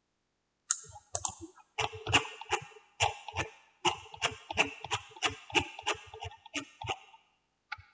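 Computer keyboard keys being pressed in an uneven run of about twenty clicks, a little under three a second, stopping about seven seconds in, with one last click near the end.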